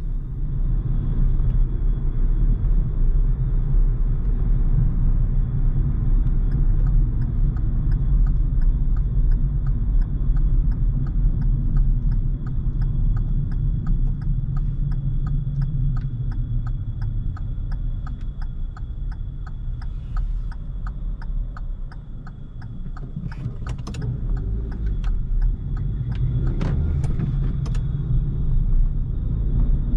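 Car driving, heard from inside the cabin: steady engine and tyre rumble, with the turn-signal indicator ticking evenly through nearly all of it. Two louder knocks come near the end.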